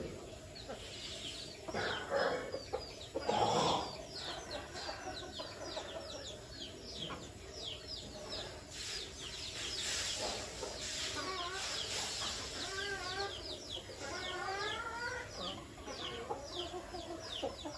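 Free-range chickens clucking and calling, with a few louder calls in the first four seconds and wavering, warbling calls from about 11 to 15 seconds in, over continual quick, high, falling chirps.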